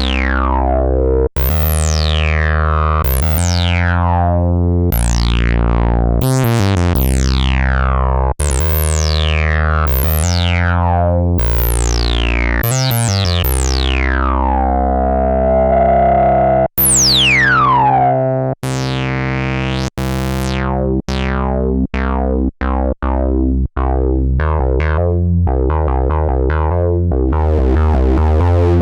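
Korg monologue analog monophonic synthesizer playing a deep bass line, each note opening bright and closing down quickly in a falling filter sweep. After about twenty seconds the notes turn short and rapid in a sequenced pattern.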